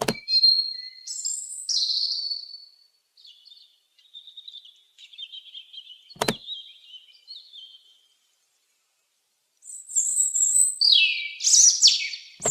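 A robin chirping and trilling in short high phrases, with dense, louder twittering in the last couple of seconds. Two sharp clicks cut in, one at the very start and one about halfway.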